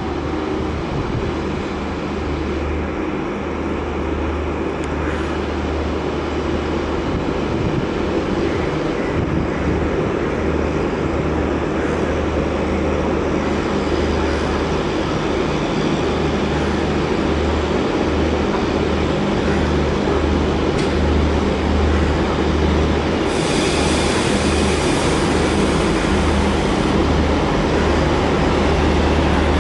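WDM-3A diesel-electric locomotive's engine running with a pulsing low drone as it hauls the train slowly into the station, the coaches rolling on the rails behind it. A hiss rises over it for a few seconds near the end.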